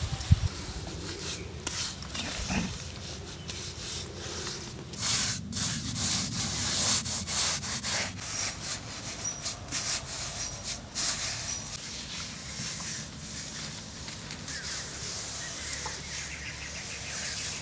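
Bare hand rubbing and smoothing wet mud plaster, a run of uneven scraping strokes.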